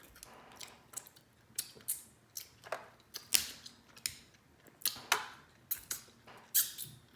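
Alaskan crab leg shell being cracked and picked apart by hand: a string of short, sharp cracks and clicks at an irregular pace, roughly two a second.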